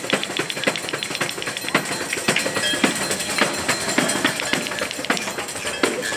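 Tamburello (Italian frame-drum tambourine) played in a fast, steady rhythm, several strokes a second, its jingles ringing with each hit.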